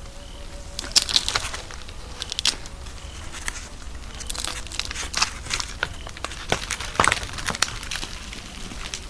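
Hedgehog rummaging in a heap of dry scraps, making irregular clusters of crackling and crunching.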